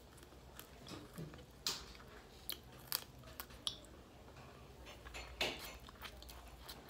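Faint chewing and lip smacks while gnawing a chicken bone, a scatter of short wet clicks and smacks.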